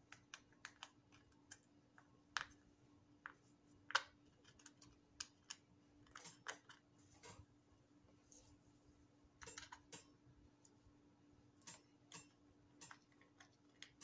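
Faint, irregular small clicks and scratches of a hand pick scraping dissolved alkaline-battery corrosion off the spring contacts in a plastic GPS battery compartment, with a few brief bursts of scraping.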